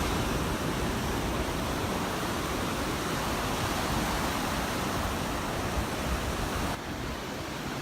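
Surf washing on the beach, a steady even hiss with no distinct wave breaks, which changes abruptly near the end.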